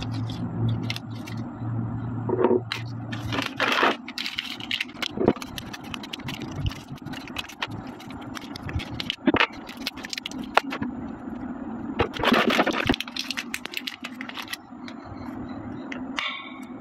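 Clear plastic packaging crinkling and small hard-plastic figure parts clicking and tapping together as they are handled and unpacked, in short irregular bursts with two louder stretches of crinkling.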